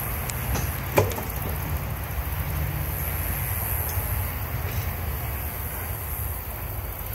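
A sharp metallic clink about a second in and a few fainter clicks from hand tools and parts being worked on a V-twin engine's top end, over a steady low rumble.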